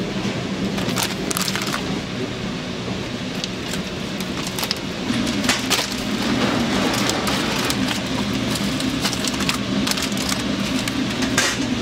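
Clear plastic vacuum bag crinkling and rustling in gloved hands as a pork belly slab is slid into it and laid in a chamber vacuum sealer, with many short crackles, over a steady low hum.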